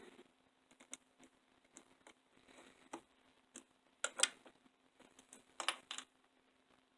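Scattered light clicks and taps of small metal and plastic parts and a tool as an HO scale model locomotive is taken apart to remove its wheels, with a louder cluster of clicks about four seconds in and another near six seconds.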